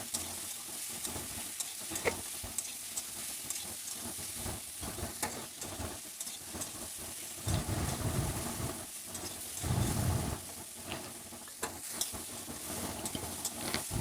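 Pressure-cooked raw jackfruit pieces sizzling in hot mustard oil in a kadai, with a spatula clicking and scraping as they are stirred. Two duller, lower thuds of handling come about eight and ten seconds in.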